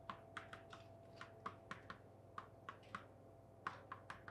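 Chalk clicking faintly on a blackboard as characters are written: a string of short, irregular taps, a few each second.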